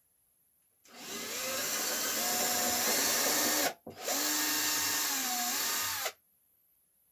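Cordless drill boring a hole into a fir-board planter, running about three seconds, stopping briefly, then running about two seconds more, its pitch shifting as the bit bites into the wood.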